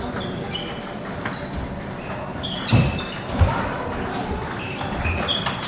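Table tennis balls clicking off tables and bats: short, high-pitched pocks at irregular intervals and varied pitches, overlapping. A couple of dull thumps come about three seconds in.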